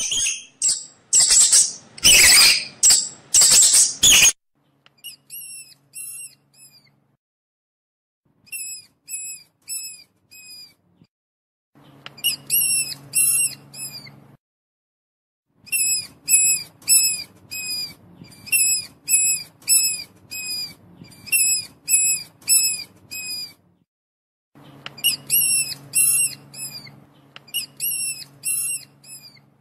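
Mouse squeaking: runs of short, high-pitched squeaks, two or three a second, broken by gaps of a second or two. The first few seconds are louder, rougher squeals.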